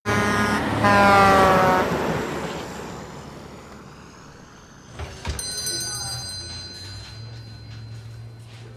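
A logging truck passes close by, its engine note falling in pitch as it goes past and then fading away. About five seconds in there is a knock, followed by the ringing of a small bell over a café door.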